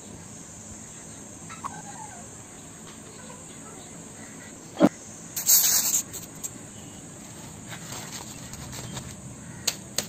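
Crickets chirping steadily in the background. A sharp click comes about five seconds in, and a short hissing burst follows right after it.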